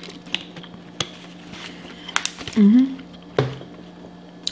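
Close-up eating sounds of cheeseburger fries: scattered mouth clicks and light taps, with a short hummed voice sound about two and a half seconds in.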